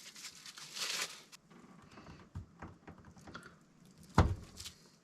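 Knife and wrapper handling while preparing food: hard cheese being cut, with light crinkling and small clicks, and one sharp knock about four seconds in, like the blade meeting the cutting surface.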